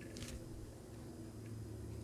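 Faint handling sounds among small desk fans: a brief light rustle and click near the start and a small tick about halfway through, over a faint low hum.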